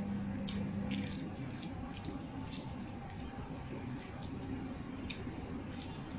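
Lemon squeezed by hand over a pan, juice dripping into a marinade of garlic, with soft squishes and scattered small drips and ticks. A low steady hum stops about a second in.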